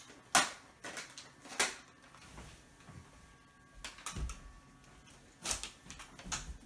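A few separate sharp clicks and knocks, a second or more apart, from a toy foam-dart blaster being snatched up and handled. The loudest click comes just after the start.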